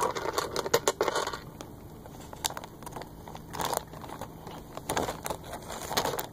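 Seashells clattering and clicking against one another in irregular bursts as they are scooped up and gathered by hand.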